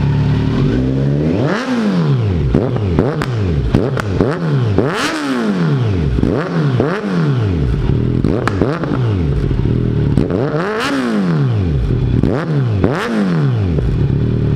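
A warmed-up 2021 Kawasaki Z900's inline-four, running through a Scorpion full-system exhaust, idling and then revved hard in a string of quick throttle blips. Each blip sends the pitch up and back down, with crackles on the overrun, and the engine settles back to a steady idle near the end.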